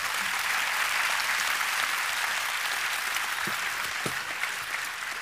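A large audience applauding, dying down slightly near the end.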